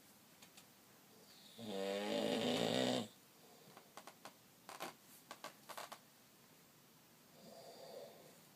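A man snoring: one loud snore starting about a second and a half in and lasting about a second and a half, then a few faint clicks and a softer breath near the end.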